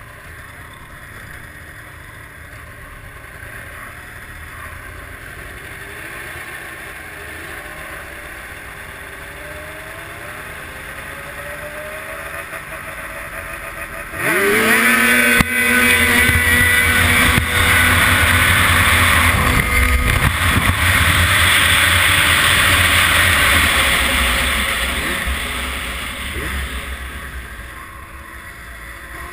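Snowmobile engine idling and blipping at a drag-race start line, then about halfway through a sudden launch to full throttle with a sharply rising rev. It holds flat out for about ten seconds, then eases off as the sled slows.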